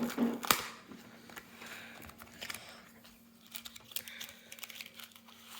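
Trading card packaging being handled and opened: soft crinkling and rustling with a few sharp clicks and snaps, the loudest about half a second in.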